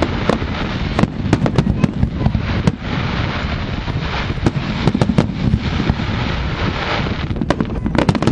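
Aerial fireworks display going off: many sharp bangs at irregular intervals over a continuous din of bursting shells.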